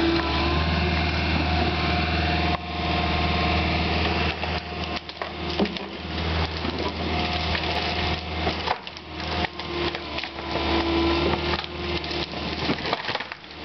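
Hydraulic excavator's diesel engine running steadily under load as its arm pushes over a pine tree. From about four seconds in, the trunk and branches crack and splinter in a run of sharp snaps as the tree gives way and falls.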